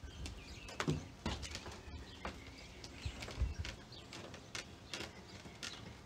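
Faint, scattered knocks and scrapes as a window air conditioner unit is handled and set into place on a shelf in a camper's window opening.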